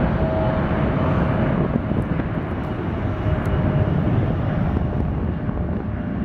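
Twin rear-mounted GE CF34 turbofans of a Bombardier CRJ regional jet running at high power during its takeoff roll: a steady, dense rumble, with a faint whine that fades about a second and a half in.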